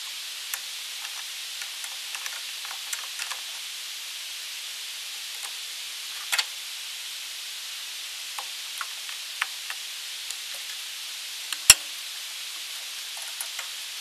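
Small scattered metal clicks and ticks of needle-nose pliers pushing spade connectors back onto a gas furnace's cleaned switch terminals, with one sharper click about twelve seconds in, over a steady hiss.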